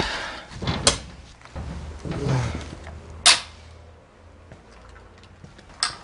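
Footsteps and rustling of a person walking over a debris-strewn hard floor, with sharp knocks or scrapes about one second in, a louder one about three seconds in, and another near the end.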